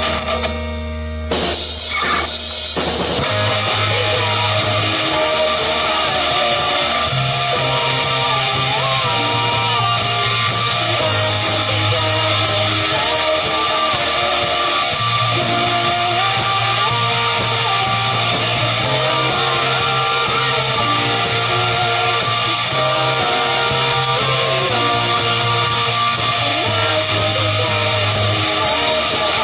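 Amateur rock band playing live: electric guitars over bass guitar and a drum kit. There is a short break near the start where the drums and guitars cut out and only the low notes hold, then the full band comes back in.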